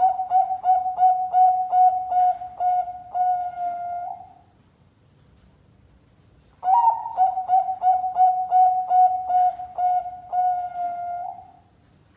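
Bangkok-type zebra dove (perkutut) singing two song phrases. Each phrase is a quick run of about a dozen clear coos, ending in a longer drawn-out note.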